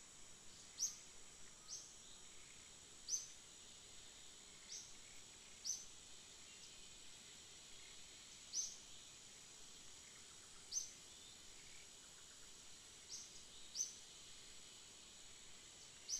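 Faint forest ambience: a steady high insect drone, with short, sharp high bird chirps about ten times, spaced irregularly one to three seconds apart.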